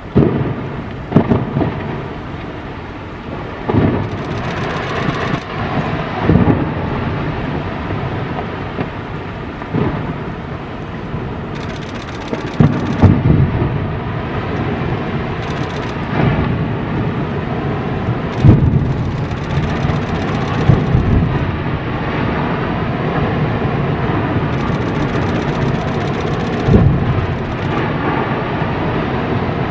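Iceberg ice cracking and collapsing into the sea: a series of deep booms and crashes, the loudest around the middle, over a steady rumbling background.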